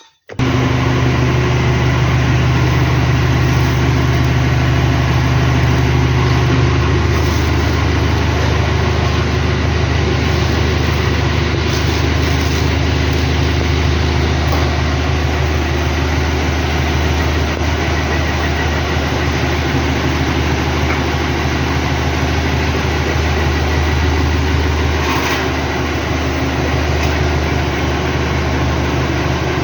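Diesel farm tractor engine running steadily. Its note shifts slightly about seven seconds in.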